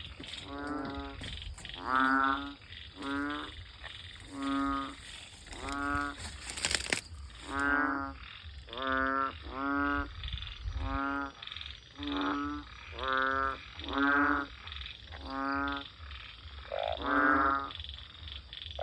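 Banded bullfrogs (Asian painted frogs) calling after heavy rain. There is a string of low, bleating calls about one a second, each roughly half a second long, and now and then a second frog overlaps. A brief crackle of noise comes about seven seconds in.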